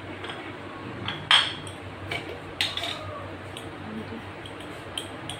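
A few sharp metallic clinks of kitchen utensils and dishes, the loudest about a second in, then two more, with softer clicks near the end.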